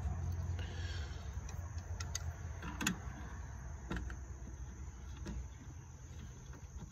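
A few separate sharp metallic clicks of a hand tool working a nut on the throttle-cable fitting of a golf cart, over a low steady rumble.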